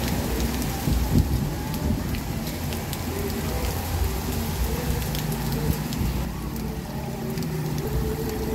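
Heavy rain falling steadily on concrete steps and plant leaves, with scattered single drops ticking close by.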